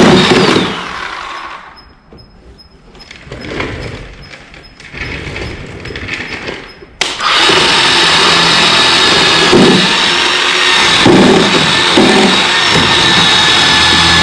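Chainsaw cutting into a boat's wooden transom core. It winds down and stops about a second in, then starts again suddenly about seven seconds in and runs steadily, with regular surges as it bites into the wood.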